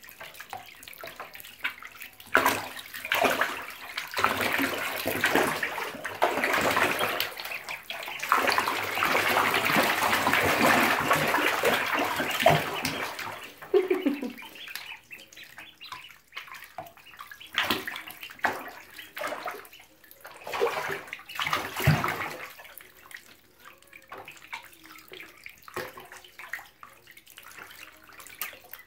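Water splashing and sloshing in a shallow bathtub as a group of week-old ducklings swim and paddle. The sound is dense and continuous for the first several seconds, then breaks up into scattered small splashes after about halfway.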